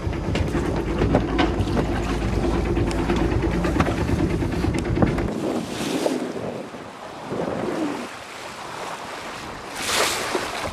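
A sailing yacht's inboard diesel engine runs under way with a steady hum over water and wind noise. The engine sound cuts off abruptly about halfway through, leaving the rush of water and wind, with two brief gusts of wind on the microphone.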